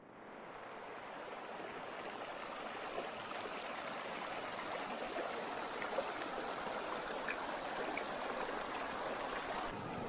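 Shallow, rocky mountain brook rushing and rippling steadily over stones, fading in over the first second.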